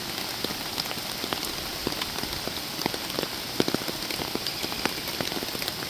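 Steady rain falling, with many separate drops landing as sharp ticks close to the microphone.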